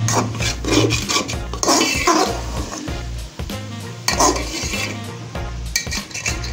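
A metal spoon stirs grated carrots frying in ghee in an aluminium pot, scraping against the pot in repeated strokes.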